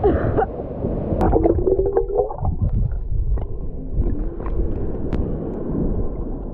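Muffled water gurgling and sloshing, with a brief wavering tone about a second in.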